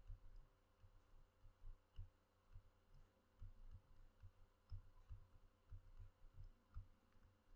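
Near silence: room tone with faint, scattered low taps and tiny ticks of a stylus writing on a drawing tablet.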